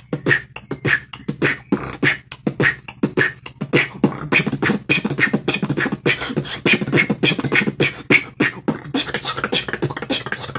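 Beatboxed drum and bass beat: a fast, unbroken run of mouth-made kick and snare sounds that combines three drum and bass patterns into one groove.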